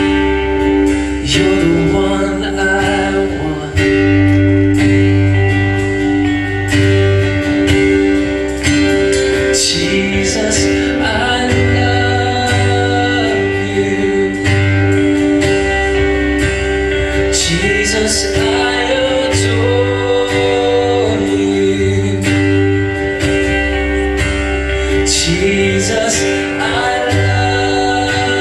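Live worship band playing a slow song: strummed acoustic guitar over bass, drums and sustained electric guitar, with singing coming in at intervals and occasional cymbal crashes.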